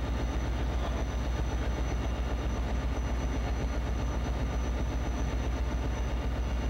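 EMD 16-cylinder two-stroke diesel of a VIA F40PH-2 locomotive idling, a steady low rumble.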